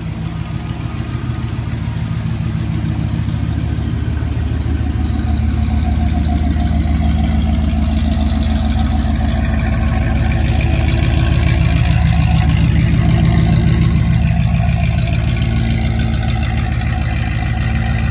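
Mercury Capri's engine idling steadily with a fast, even pulsing, a little louder in the middle. The engine has an exhaust leak at the driver's-side header, which the owner confirmed as the cause of its ticking.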